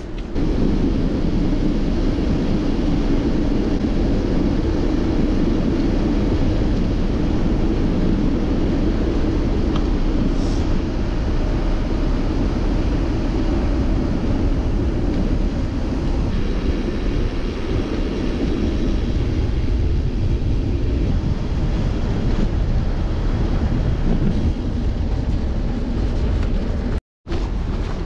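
Wind buffeting the microphone of a camera on a moving bicycle: a steady, loud, low rumble. It drops out for a moment near the end.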